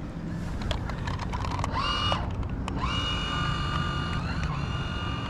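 Electric motor of a small radio-controlled fishing boat whining as it drives away across the water. The whine rises in pitch as it starts, cuts out briefly, then picks up again and runs steadily, dipping for a moment near the end.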